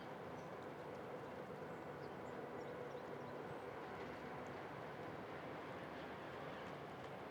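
Steady outdoor background noise, an even low rush with a faint constant hum, with a few faint short high chirps scattered through it.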